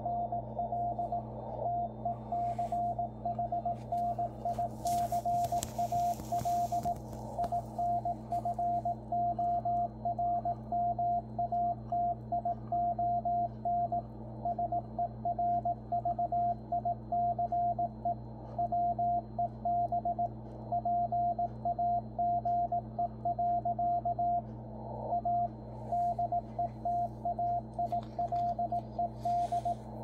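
Machine-sent Morse code from W1AW, the ARRL headquarters station, received on the 80-metre band through a Yaesu FTdx10 transceiver. It is heard as a strong, clean, even-paced on-off beep over a low hiss of band noise, with the slow AGC set and the signal well centred, good enough for the radio's decoder to read.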